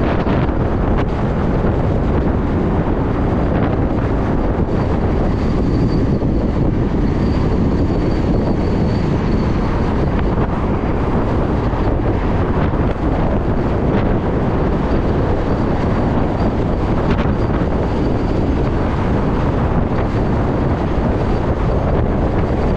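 Wind rushing over the microphone of a moving electric motorcycle: a steady, loud rumble with a faint high whine that comes and goes.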